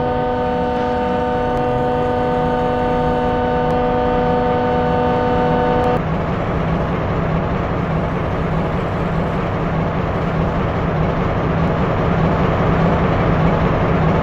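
School bell sounding one steady, unwavering tone that cuts off abruptly about six seconds in, leaving a steady hiss with a low hum.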